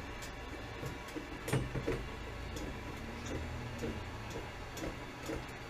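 Scattered light metallic clicks and taps of hand tools working an old ball valve on a water line, with a sharper knock about one and a half seconds in. The valve is old and worn out.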